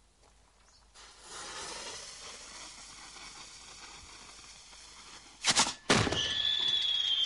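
A firework mortar's fuse hissing as it burns for about four seconds, then the gunpowder charge firing with two sharp bangs about half a second apart. A whistle follows, gliding slowly down in pitch.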